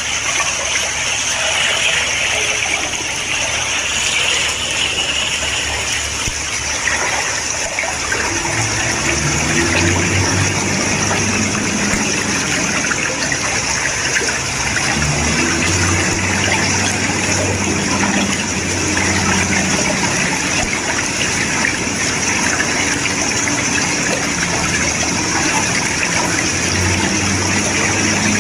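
Water gushing steadily, with a low machine hum joining in about eight seconds in and coming and going.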